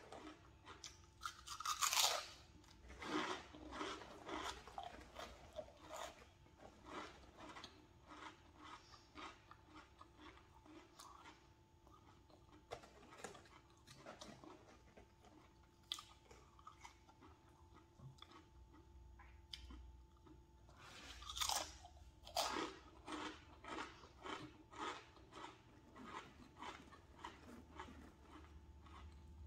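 A person biting into and chewing crisp snack chips close to the microphone: repeated sharp crunches, with louder bites about two seconds in and again about twenty-one seconds in.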